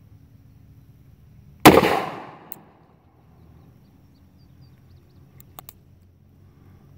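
A single shot from a Taurus 415 two-inch, Magnaported .41 Magnum revolver about two seconds in, ringing out and fading over about a second. Two faint clicks come near the end as the hammer is thumbed back for the next single-action shot.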